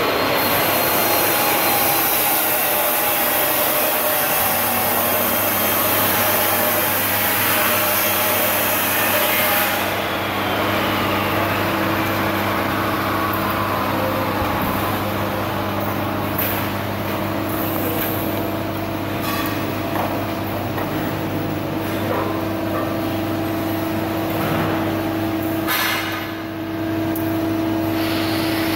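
Laser welding machine switched on and idling: a steady hum and fan-like whir from its cooling unit, with a high hiss that stops about ten seconds in and a few light clicks later.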